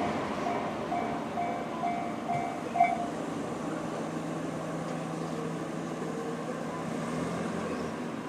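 Electronic level-crossing alarm bell sounding the JR standard tone, a repeated ding about twice a second, which stops about three seconds in as the warning ends. The rumble of a passing 211-series electric train fades out at the start, and a low steady hum follows the bell.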